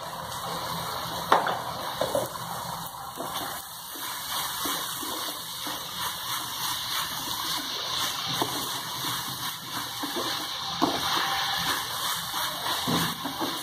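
Chopped onions sizzling as they fry in oil in a non-stick pan, nearly cooked, with a spatula stirring them and scraping and knocking against the pan now and then.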